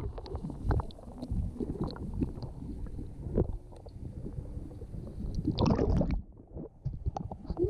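Pool water sloshing and gurgling against a kayak, with irregular low knocks from the hull and a louder stretch of sloshing about six seconds in.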